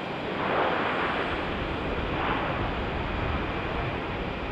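Steady rushing noise of wind on the microphone mixed with the distant roar of a Bombardier Dash 8 Q400 turboprop on the runway, swelling about a second in and again briefly near two seconds.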